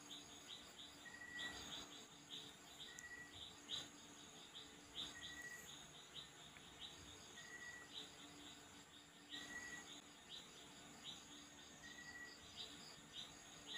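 Near silence with faint background chirping of small birds: quick high chirps, and a short clear note about every two seconds.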